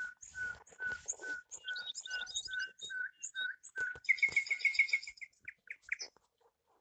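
A bird chirping: a steady series of short, evenly spaced chirps, about two and a half a second. About four seconds in comes a fast run of higher chirps lasting about a second, then a few slower notes.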